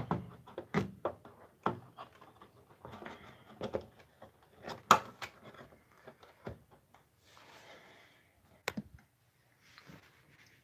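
Irregular clicks, taps and faint rustling from hands handling small parts and wires, with one sharper click about halfway through.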